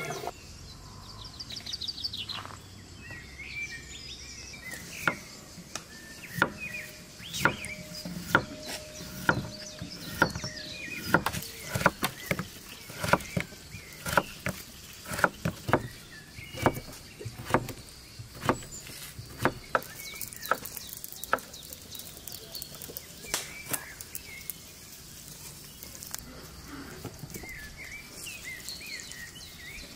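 Kitchen knife cutting a peeled potato into sticks on a wooden board: sharp, irregular chopping taps, one or two a second, through the middle of the stretch. Birds chirp at the start and near the end.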